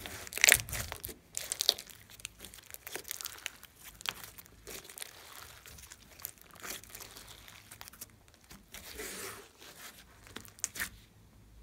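Glossy slime mixed with clay being squeezed, kneaded and stretched by hand, giving irregular sticky crackles and squishes. The loudest crackles come about half a second in, then the handling goes quieter, with another cluster of crackles near the end.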